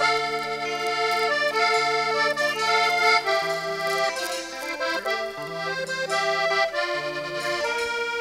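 Recorded accordion music: held chords and melody notes changing every second or so over a low bass line.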